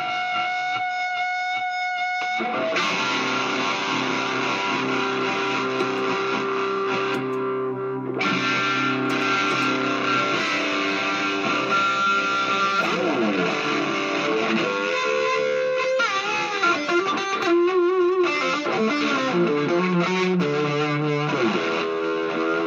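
Gibson Les Paul Studio electric guitar played through a small Vox amp and effects pedals: a few held notes, then fuller sustained chords from about two seconds in. In the second half the notes slide and waver in pitch, as in string bends and vibrato.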